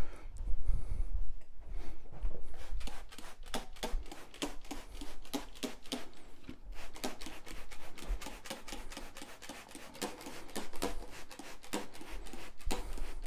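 Quick sharp spritzing clicks, several a second and irregular, with low handling thumps: a hand trigger sprayer being pumped to apply pre-spray to a carpet traffic lane.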